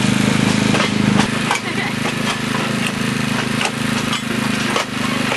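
Diesel locomotive engine running steadily as the train rolls along, with scattered clicks and knocks from the moving train. The engine drone eases slightly about one and a half seconds in.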